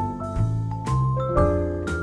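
Background music: mellow keyboard or mallet-percussion notes, like a vibraphone or electric piano, changing every fraction of a second over a steady bass.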